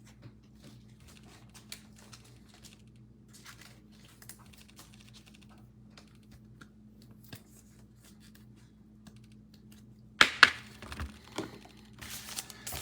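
Soft clicks and taps of trading cards being handled and shuffled, then about ten seconds in, loud crinkling of a card pack wrapper being torn open.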